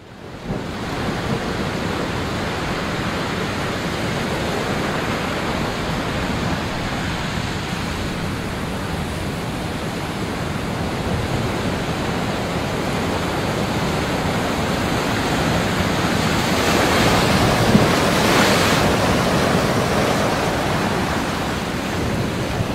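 Sea surf and wind rushing over the microphone, a steady rush that fades in at the start and swells briefly about three quarters of the way through.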